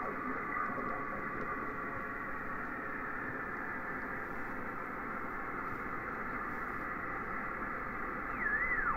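Yaesu FT-847 transceiver receiving the RS-44 satellite downlink in sideband mode: a steady, muffled hiss of receiver static with no voices. Near the end a whistling tone swoops down and back up as the tuning knob is turned across a signal.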